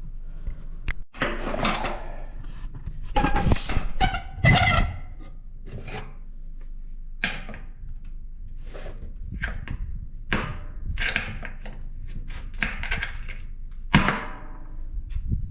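Hand-tool work on a truck's fuel tank and sending unit: a series of irregular knocks, clanks and scrapes, loudest a few seconds in and with another sharp knock near the end.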